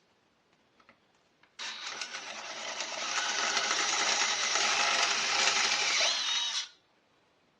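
Electric drill boring out a pilot hole in the safe door to tap-drill size: it starts about a second and a half in, builds up over the first second, runs steadily for about five seconds and cuts off sharply.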